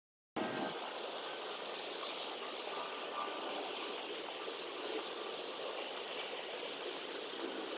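Steady outdoor background noise, an even hiss without any clear single source, with a few faint ticks; it comes in after a brief silence at the start.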